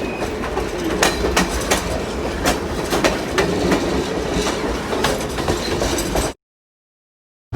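Railroad cars rolling with a steady low rumble and many irregular sharp metallic clanks. The sound cuts off suddenly about six seconds in.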